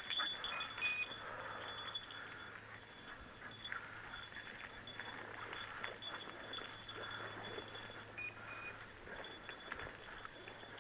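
Dry bracken rustling and crackling as someone wades through it. Two short, faint high beeps sound, one near the start and one near the end, typical of a hunting dog's beeper collar.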